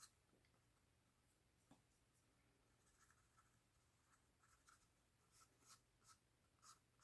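Very faint scratchy strokes of a small paintbrush working thinned black acrylic wash onto a cardboard tube, starting up about halfway through at roughly two strokes a second.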